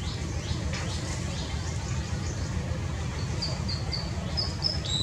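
Small birds calling in the trees: quick high descending chirps about twice a second, then from about three seconds in a string of short, high whistled notes. Under them runs a steady low rumble.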